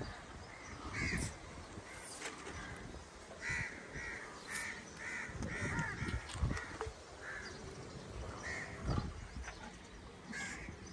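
Crows cawing: a quick run of about six caws near the middle, with single caws before and after.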